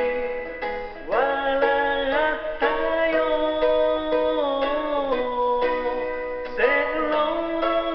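Children's song: a sung melody over a plucked-string accompaniment, with new sung phrases starting about a second in and again near the end.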